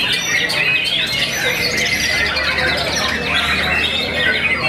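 White-rumped shama (murai batu) singing in a dense, unbroken run of fast whistled phrases, with other caged birds singing at the same time around it. A low steady hum comes in about two seconds in.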